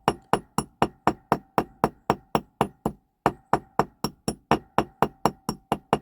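Small hammer tapping lightly and rapidly on the end of a toy car's steel axle resting on a metal block, peening the axle end over. About four taps a second, each with a short metallic ring, with a brief pause about three seconds in.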